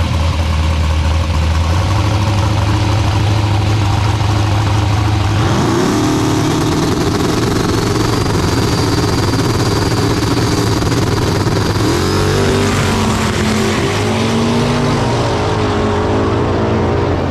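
Two drag-race cars, one a Chevrolet S-10 pickup, held at a steady high idle on the start line, then launching about five seconds in at full throttle, the engine pitch climbing and dropping with gear changes as they pull away down the strip.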